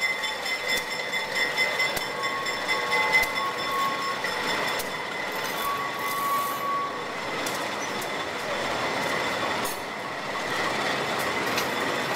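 White Pass narrow-gauge train rolling past, its steel wheels squealing on the curving track in steady high-pitched tones, with scattered clicks from the wheels over the rails.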